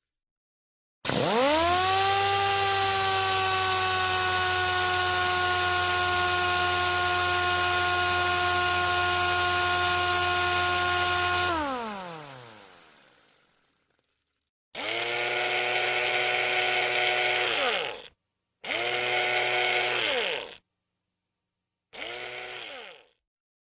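Electric screwdriver motor spinning up to a steady whine, running for about ten seconds, then winding down to a stop. Three shorter runs follow, each rising and falling in pitch, the last the briefest and quietest.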